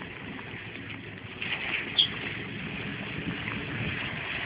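Off-road vehicle's engine running steadily as it wades through deep water, with a wash of water and wind noise. A brief high chirp stands out about two seconds in.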